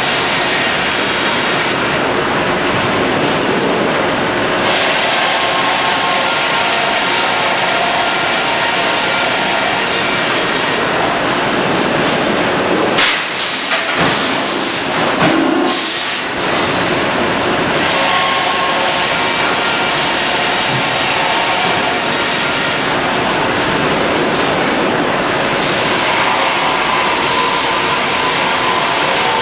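Sawmill machinery running with a loud, steady rumble and hiss, broken about halfway through by a few seconds of sharper, louder bursts.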